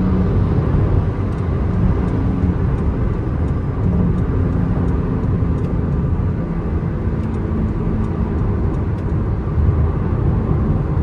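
Inside the cabin of a 2023 Porsche 718 Cayman GTS 4.0 cruising on the highway: its naturally aspirated 4.0-litre flat-six running at a steady cruise, blended with road noise.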